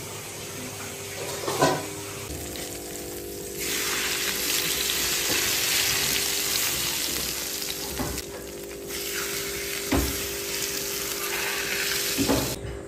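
Smoking-hot oil ladled over minced garlic and chili flakes on bowls of poached meat and fish, sizzling hard in two long spells. A few sharp knocks stand out between them.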